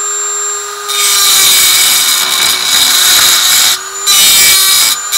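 Dremel rotary tool whining at speed, then grinding loudly into the welds of a steel Arrow expansion-chamber exhaust to cut the end cap free. The grinding lets up briefly twice near the end.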